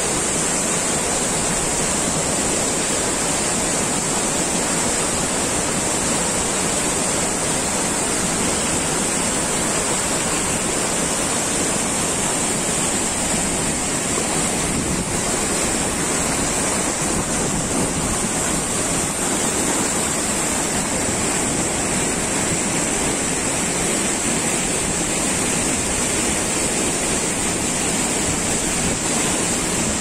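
Steady rush of falling and running water from the Palmichal waterfall and its boulder-strewn mountain creek, with a steady high-pitched hiss over it.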